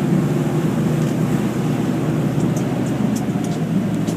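A fishing boat's engine running steadily, heard on board as a constant low drone that does not change in pitch.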